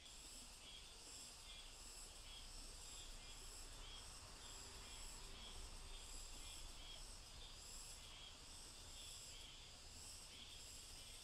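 Faint insects chirping in a steady, evenly repeating pulse, over a low steady rumble.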